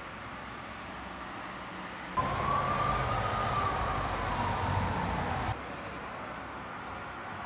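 Steady traffic hum, with a louder stretch in the middle where a siren wails once, rising and then falling in pitch; that stretch starts and stops abruptly.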